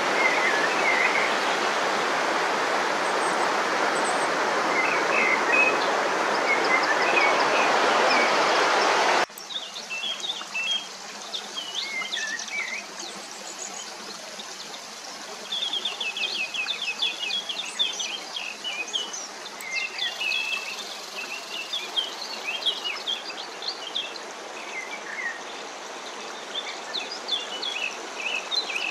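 Loud rushing water with small birds chirping over it; about nine seconds in the water noise cuts off abruptly, leaving quieter woods where several birds sing and chirp in short repeated phrases.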